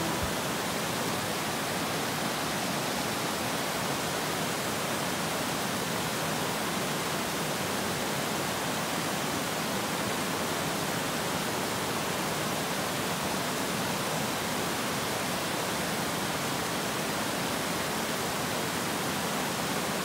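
River rapids rushing over a sloping bedrock ledge: a steady, unbroken rush of white water.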